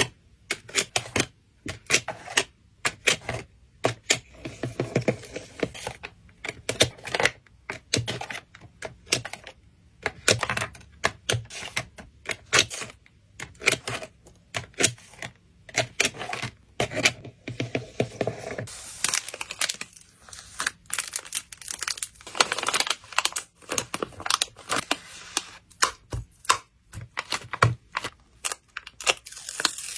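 Close-up handling sounds of photocard packing: many quick taps and clicks of cards and packing pieces on a desk, with stretches of plastic crinkling and rustling.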